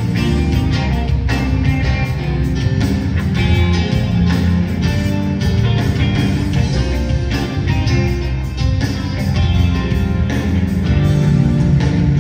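Live rock band playing, with the drum kit keeping a steady beat under electric bass and guitar, heard through the arena's PA.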